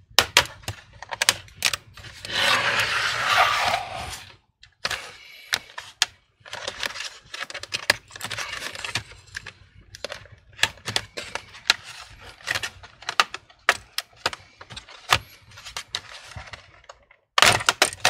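Plastic snap clips on a Dell Inspiron 3593 laptop's base cover clicking and cracking loose as a plastic pry tool is worked along the seam, with a longer scraping stretch about two seconds in. Then many small clicks and knocks as the plastic cover is handled and lifted off.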